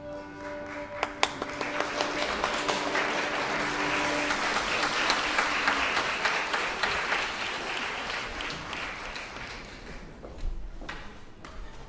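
Audience applauding in a hall, building up soon after the start and dying away about ten seconds in.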